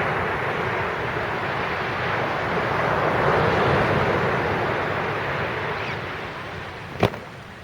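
Sea waves breaking and washing up the beach, a rushing surge that swells and then fades away. A single sharp click near the end.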